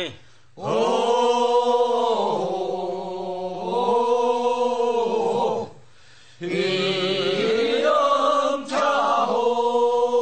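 Unaccompanied voices singing sangyeo-sori, the Korean bier bearers' funeral song from Yeongcheon, in two long, drawn-out phrases of held, wavering notes, with a short breath pause between them about six seconds in.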